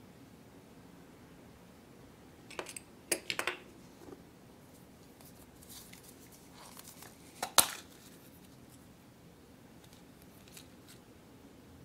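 Plastic gashapon capsules being handled and opened: a few quick sharp clicks of the plastic shells, a louder snap about seven and a half seconds in as a capsule comes apart, and soft crinkling of the plastic-wrapped toy and paper insert.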